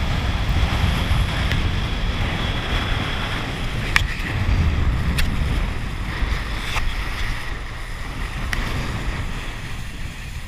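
Speedboat under way towing an inflatable ride, its engine and wake rushing under heavy wind buffeting on the microphone. A few sharp ticks come at uneven intervals.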